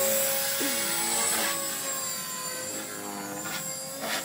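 Electric RC helicopter in flight: the E-flite 3600 kv brushless motor and main rotor give a steady whine that holds one pitch, the head speed kept constant by the ESC's governor.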